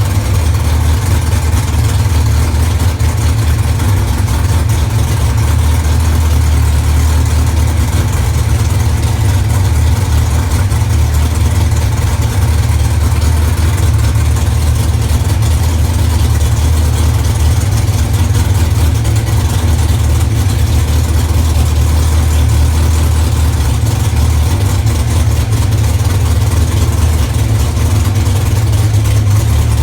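A 604 cubic-inch Mopar engine in an ex-Pro Stock Dodge Stratus drag car, idling steadily with a low, even note.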